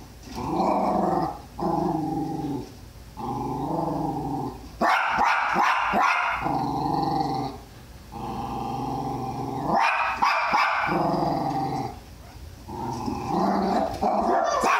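Jack Russell terrier growling and whining in drawn-out stretches of a second or two, with a few sharp barks mixed in, worked up by a guinea pig on the TV screen.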